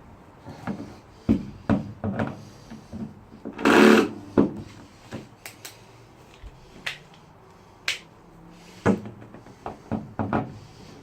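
Irregular knocks and clatter of wooden floor planks and hand tools being handled, with one louder, short scraping burst about four seconds in.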